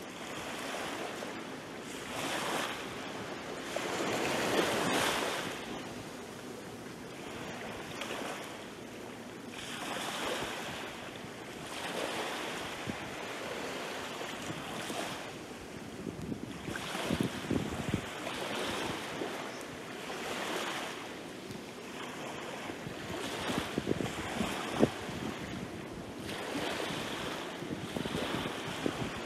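Small ocean waves lapping and washing up a sandy, pebbly beach, the wash swelling and fading every couple of seconds.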